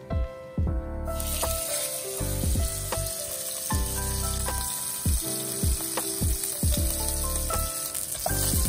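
Dry-aged côte de boeuf (bone-in rib steak) sizzling in a hot frying pan as it sears. The sizzle starts about a second in and then holds steady, under background music with a steady beat.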